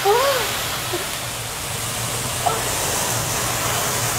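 Food sizzling on a hot teppanyaki iron griddle: a steady, even hiss.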